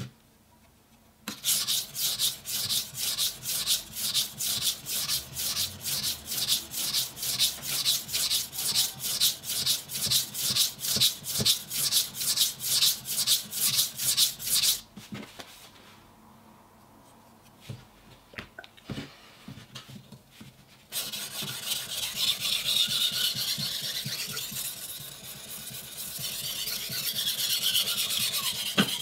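Steel knife blade stroked back and forth on a wet Japanese water stone: a rhythmic rasping scrape at about three strokes a second. About two-thirds of the way through it stops, a few light knocks follow, then a steadier continuous grinding rub on the stone runs to the end.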